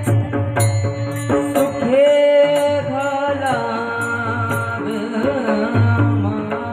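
A solo voice singing a devotional melody with long held notes and sliding ornaments over a steady drone and a drum. A metallic beat strikes about twice a second, in the manner of small hand cymbals.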